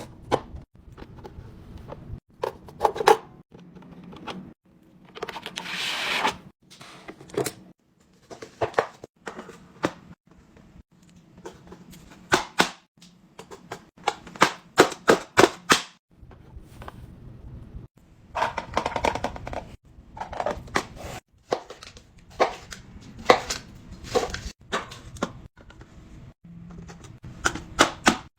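Containers and groceries being handled and set down while restocking a fridge: irregular clicks, taps and knocks of plastic and glass, with a couple of longer rustling or pouring stretches.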